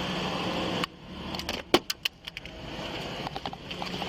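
A steady vehicle running hum that cuts off abruptly about a second in, followed by a scatter of sharp metallic clicks and jingling, one much louder click about halfway through; the hum returns near the end.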